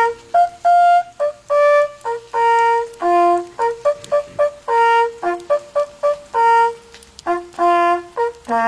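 Hunting horn, a valveless brass horn, playing a hunting signal: a brisk run of short notes with a few held ones, jumping between a handful of open notes.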